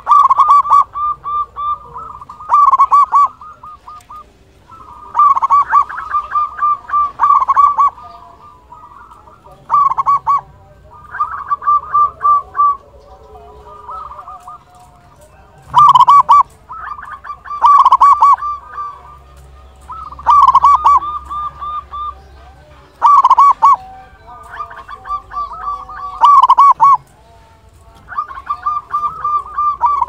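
Local Indonesian zebra dove (perkutut) cooing loudly: phrases of rapid staccato notes, repeated every few seconds.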